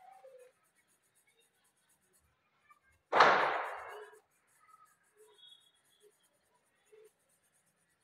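A single sudden loud bang about three seconds in, fading away over about a second.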